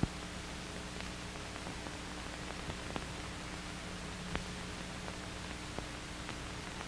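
Steady hiss from an old film soundtrack, with a faint low hum and a few scattered clicks and crackles, the sharpest about four seconds in.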